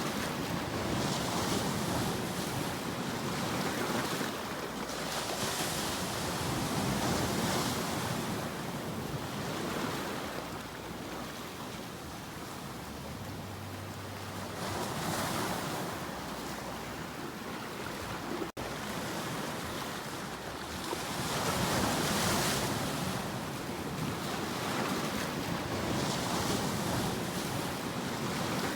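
Sea waves surging and washing ashore, swelling and easing every few seconds, with a momentary cut-out about two-thirds through.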